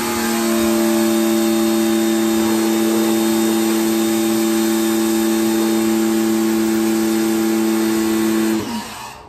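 Kawasaki ACK 302 pressure washer running: a steady motor and pump hum under the hiss of the high-pressure water spray. Near the end the hum falls in pitch and dies away as the machine stops.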